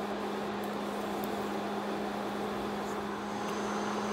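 Steady low electrical hum over an even hiss, the sound of a kitchen appliance running, with a few faint ticks.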